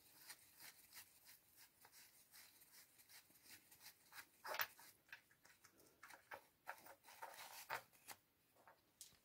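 Near silence, with faint, scattered clicks and taps of a metal spanner worked at the oil pump thrust plug in a Peugeot XD diesel engine block. One sharper click comes about four and a half seconds in.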